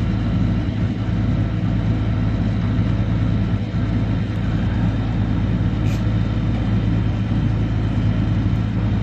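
Heavy tow truck's diesel engine running steadily with a constant low hum.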